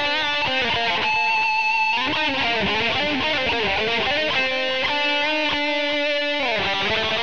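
Overdriven electric guitar, an Ibanez RG370DX through a Line 6 POD 2.0 amp modeller, playing a lead line of single notes. It has held notes with vibrato and string bends, then a long sustained note that slides down near the end.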